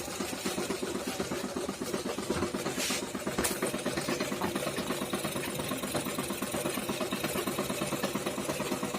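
Jack sewing machine running at speed, its needle strokes making a rapid, even mechanical rhythm.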